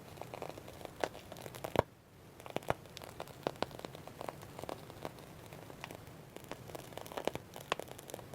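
Slime being worked by hand, giving irregular crackles, clicks and small pops, the sharpest a little under two seconds in.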